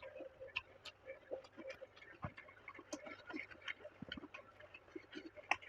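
Close-miked eating sounds: a steady run of small, irregular mouth clicks and smacks from chewing, with a few louder crunchy bites.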